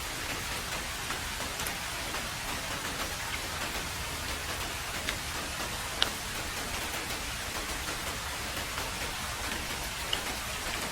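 Heavy rain falling steadily as a dense, even hiss, with a few sharper single drops ticking out above it; the loudest comes about six seconds in.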